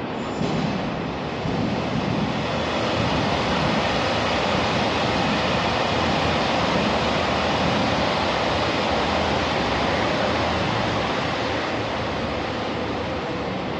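Electric train moving along a station platform: a steady rush of wheel and motor noise that builds over the first few seconds and eases off near the end.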